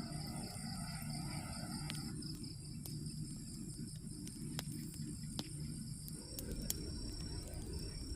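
Insects trilling in steady high tones over a low steady rush of rain, with scattered sharp ticks of drops striking the shelter.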